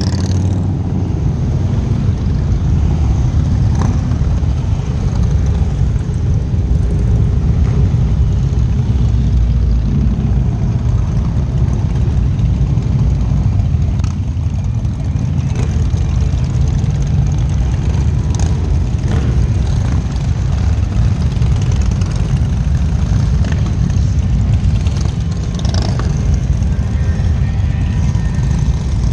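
A procession of cruiser and touring motorcycles riding slowly past one after another, their engines making a steady, loud low-pitched sound that carries on without a break.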